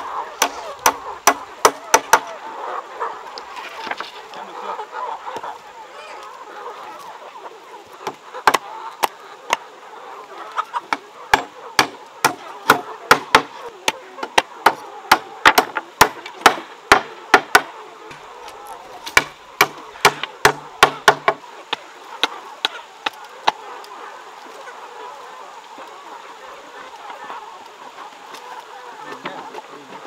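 Hammer driving nails into wooden boards in quick runs of blows, about two a second at the busiest. The blows are thickest through the middle and stop about two-thirds of the way through, leaving only a few stray knocks. Chickens cluck in the background throughout.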